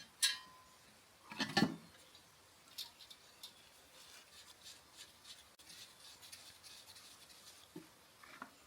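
Metal parts and tools clinking and knocking together: a sharp clink with a brief ring near the start, a couple of heavier knocks about a second and a half in, then faint small ticks.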